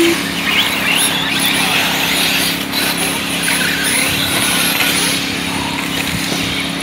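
Electric RC off-road buggies racing on a dirt track, their motors whining and rising and falling in pitch with the throttle, over a steady low hum. A short beep sounds at the very start.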